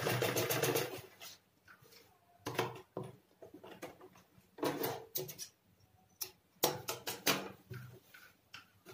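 Domestic sewing machine stitching in short runs, a rapid clatter of stitches at the start, then bursts of fabric rustling and handling with scattered clicks.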